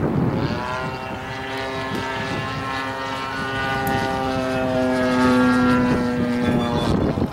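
Engine and propeller of a radio-controlled aerobatic model airplane in flight, a steady droning note that drops in pitch during the first second, then holds level.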